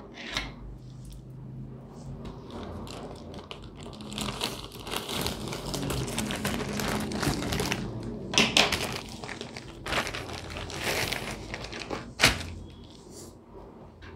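A plastic courier mailer crinkling and rustling as it is opened and handled and books are pulled out of it, with a few sharp clicks and one loud knock about twelve seconds in.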